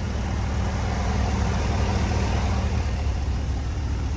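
2018 Cadillac Escalade's 6.2-litre V8 idling steadily: the engine is running after a new starter was fitted, which cured its no-crank, no-start fault.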